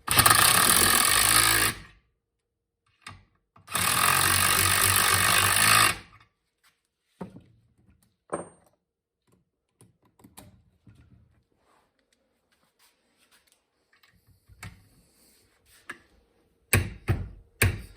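A power tool runs in two bursts of about two seconds each, driving the threaded footpeg spindles into their mounts. Quieter clicks and knocks of tools being handled follow, with a cluster of sharp clicks near the end.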